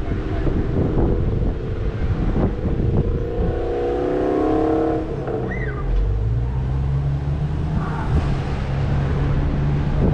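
Car driving on a city street: steady low engine and road rumble with gusty wind noise on the microphone. Near the middle an engine note rises for a second or so as the car pulls away, then settles into a steady low hum.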